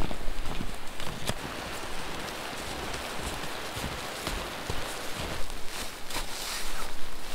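Snowshoes shuffling and crunching through fresh powder snow: a soft, steady hiss with scattered light clicks. Near the end comes brighter rustling as the snow-covered backpack is handled.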